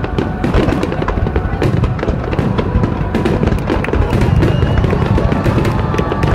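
A dense barrage of aerial firework shells bursting: continuous heavy booms with many sharp cracks and crackles packed close together and no pause between them.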